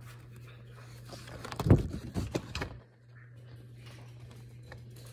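A quick run of knocks and thuds about two seconds in, the first the loudest, over a steady low hum.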